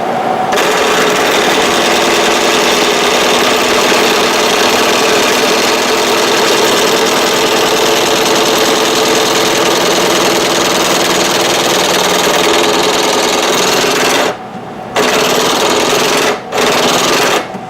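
Ridgid electric drill boring slowly through steel for a sway bar bracket hole, its motor running steadily under load. It stops briefly about 14 seconds in and again shortly after, then cuts off near the end as the bit breaks through.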